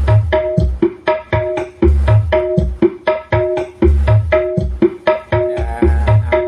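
Music with a steady, repeating hand-drum beat and deep bass thumps, played loud through a home-built stereo OCL power amplifier and its speakers in a sound test.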